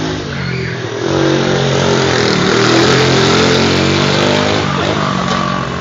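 ATV engine running, getting louder about a second in and easing off again near the end.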